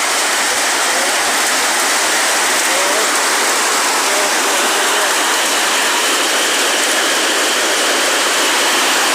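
Storm noise: a steady, loud hiss of heavy rain and wind.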